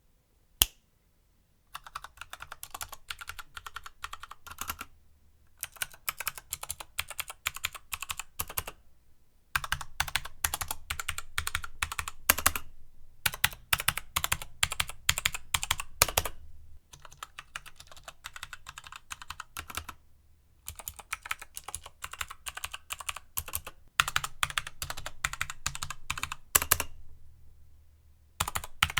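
Fast typing on a Keychron K2 mechanical keyboard with Gateron switches. Bursts of rapid keystrokes a few seconds long are broken by short pauses, after a single sharp keystroke near the start.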